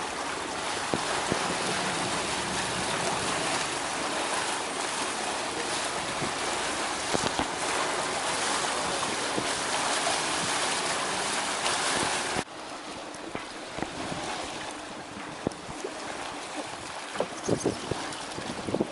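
Steady rushing of wind and water aboard a moving boat, with wind buffeting the microphone. About twelve seconds in it drops suddenly to a quieter rush, with a few faint knocks near the end.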